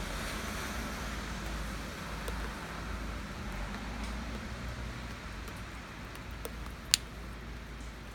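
Steady rain ambience with a low traffic rumble underneath. A single sharp tick comes about seven seconds in.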